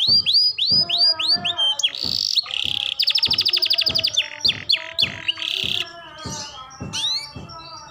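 Young canary practising its song: a run of quick rising chirps about five a second, then a very fast rolling trill about three seconds in, broken by a few harsh, scratchy notes and a looser jumble of softer notes near the end, typical of a young bird still learning to sing.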